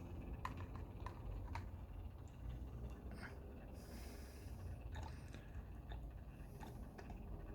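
Faint scattered clicks and light taps of small objects being handled by hand, with a brief soft hiss about four seconds in.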